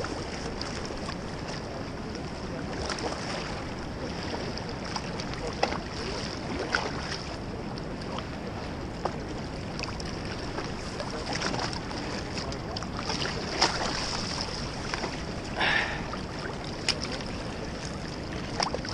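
Wind on the microphone over the steady rush of a fast river, with a few short knocks and rustles and one brief louder splash-like sound a little before the end.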